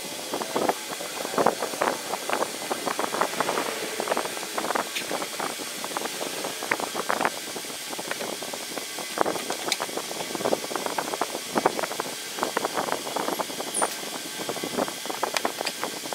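Irregular clicks, taps and rustles of hands working on a diesel fuel filter housing under the bonnet, wiping it down with a cloth.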